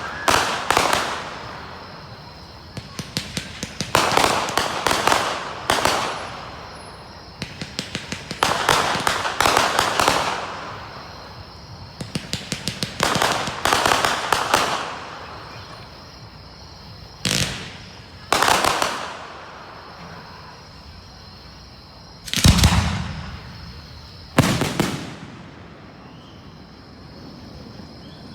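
Fireworks display: a steady series of aerial bursts, most of them crackling shells that go off as rapid strings of pops, with a couple of deeper booms near the end.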